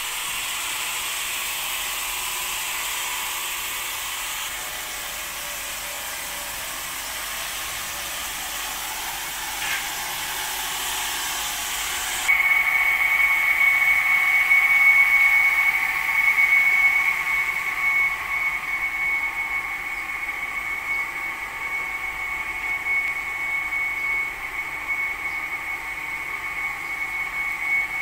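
A steady hiss, then an abrupt change about twelve seconds in to the steady high-pitched whine of a running machine, wavering a little in loudness.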